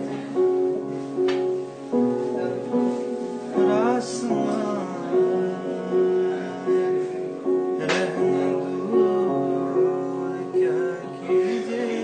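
Keyboard playing sustained chords with a steady repeating pulse between sung lines, with a man's brief wordless vocal runs about four seconds in and again near nine seconds.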